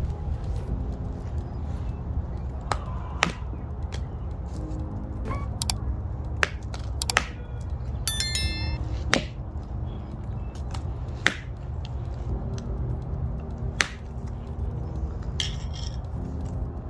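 A screwdriver jabbing and prying at a Samsung Galaxy S8 Plus phone battery: a series of sharp clicks and taps, with a short metallic ring about eight seconds in, over a steady low background rumble.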